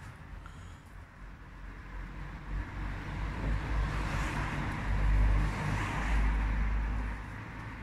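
A road vehicle passing by, its engine and tyre noise swelling to a peak about five to six seconds in and fading near the end.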